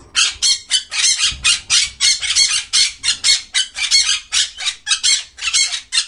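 Rainbow lorikeet screeching in a rapid run of harsh squawks, about four a second, that stops abruptly near the end.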